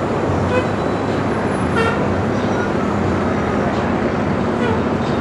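Light helicopter flying low overhead, mixed with steady city street traffic noise; a short vehicle horn toot about two seconds in.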